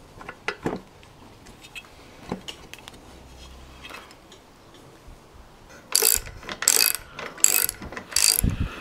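Hand ratchet wrench tightening the bolts that hold an outboard motor's lower unit to its midsection. A few light clicks and knocks come first, then from about six seconds in four loud bursts of ratcheting, about one every two-thirds of a second.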